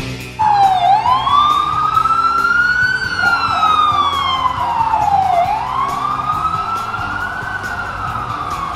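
Emergency-vehicle siren on a slow wail, its pitch rising and falling in long sweeps of a few seconds each, in city street traffic.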